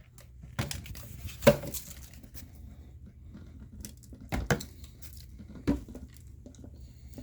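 Plastic clicks and knocks from handling a Dirt Devil Quick Power vacuum as its dust cup is taken off and opened, with the sharpest knock about a second and a half in.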